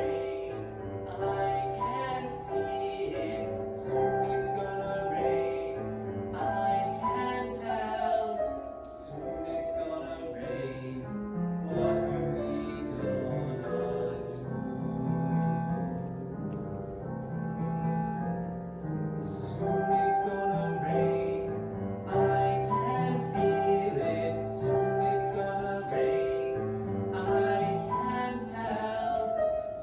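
A solo voice singing a slow show-tune ballad with piano accompaniment.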